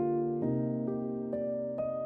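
Background music: a gentle electric piano melody, notes changing about every half second.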